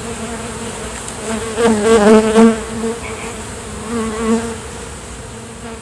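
Honey bees buzzing in flight around the hive box, with a steady drone that swells louder as individual bees pass close, about one and a half to two and a half seconds in and again around four seconds.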